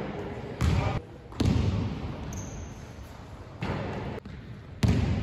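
Basketball bouncing on a hardwood court during play, with several sudden thuds that echo around a large sports hall.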